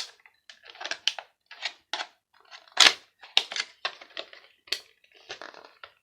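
Parts of a small plastic-cased electronic device being pulled and pried apart: a series of irregular clicks, cracks and short scrapes, the sharpest about three seconds in.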